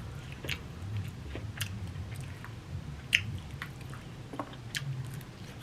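Close-miked chewing of food, with scattered wet mouth clicks and small crunches.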